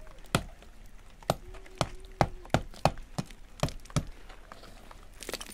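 A small hammer striking and chipping at the plaster and mud around a window opening in a mud-and-stone wall, about ten sharp knocks at an uneven pace of roughly two a second.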